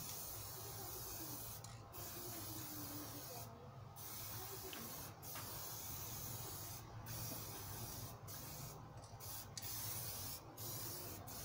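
Electric paint spray gun spraying paint: a high, even hiss that stops and restarts about eight times, over a steady low hum.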